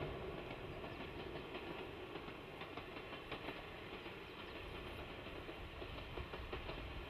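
JNR DE10 diesel locomotive's V12 engine running as it hauls a Maya 34 track inspection car along the line, with a few wheel clicks over the rails.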